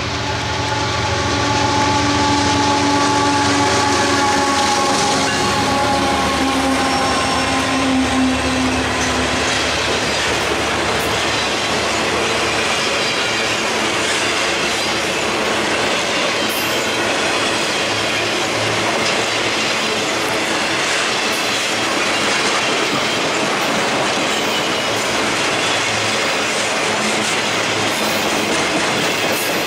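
A freight train passing close by. Over the first third the locomotives go past with several steady tones that sink slightly in pitch. After that a long string of flatcars loaded with continuous welded rail rolls by with a steady rumble of wheels on rail.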